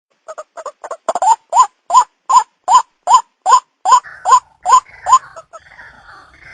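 White-breasted waterhen calling: a run of short, loud, upward-inflected notes repeated about two and a half times a second, starting as quick paired notes. A harsher, raspy sound joins after about four seconds.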